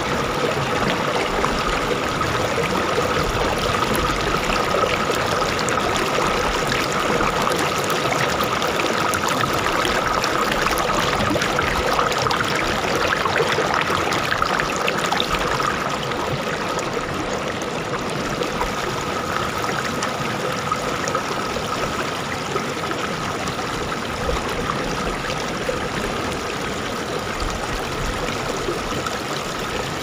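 Shallow river flowing fast over stones and spilling over a low rock ledge: a steady rush and splash of moving water, dipping slightly in level about halfway through.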